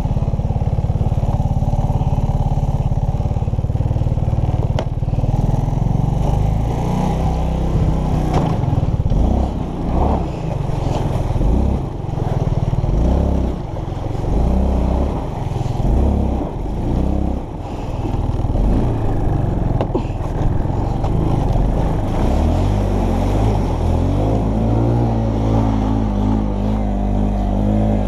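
Arctic Cat 250 ATV engine running under load in mud, its revs rising and falling again and again through the middle, then pulling steadily near the end.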